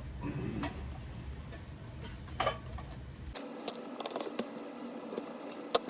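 A few faint clicks and taps from small tools and model parts being handled on a workbench, over a low background hum that cuts off abruptly about three and a half seconds in.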